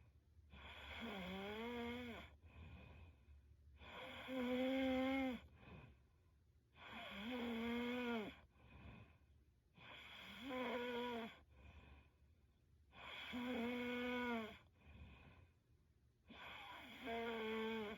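A young woman snoring in her sleep: a tonal, slightly wavering snore about every three seconds, six in all, with fainter breaths between them.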